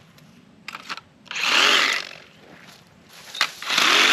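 Handheld cordless power saw cutting bamboo poles in two short bursts of under a second each, the motor speeding up and winding down with each cut. A sharp click comes shortly before each burst.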